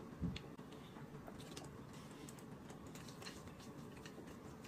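Faint eating sounds: scattered light clicks of chopsticks and chewing as boiled eggs and noodles are eaten, with one soft low thump about a third of a second in.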